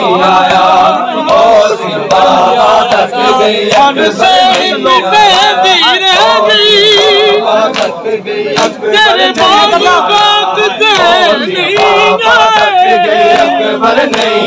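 A crowd of men chanting a Muharram noha together in wavering, drawn-out voices, over the sharp slaps of matam, hands beating on bare chests.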